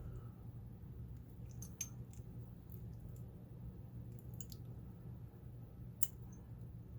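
Scattered faint metallic clicks from a pin-tumbler lock core and tools being worked against a bind, over a steady low hum. The core is stuck, which the picker puts down to a loose spring jammed inside.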